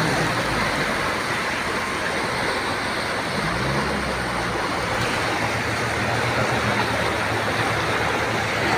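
Steady rushing of fast-flowing floodwater pouring across a road, with a vehicle's engine running low underneath.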